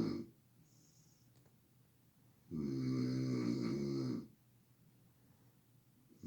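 A sleeping person snoring loudly, one rasping, droning snore every few seconds with quiet breaths between. A snore fades just after the start, a full one of nearly two seconds comes about two and a half seconds in, and the next begins right at the end.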